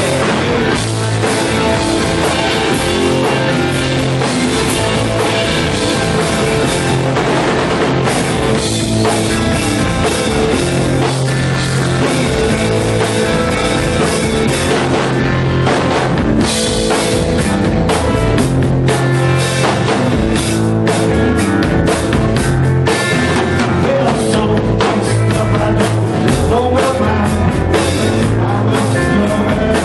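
Live punk rock band playing loud: distorted electric guitars, bass and a drum kit with a steady driving beat.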